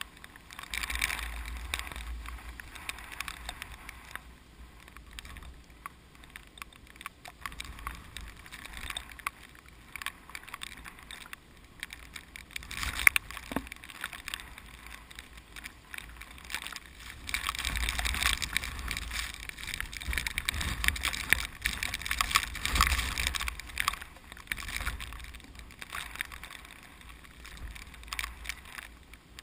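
Strong typhoon wind gusting and buffeting the microphone, with a low rumble that swells and eases. A louder run of gusts comes past the middle. One sharp knock, the loudest sound, comes about halfway through.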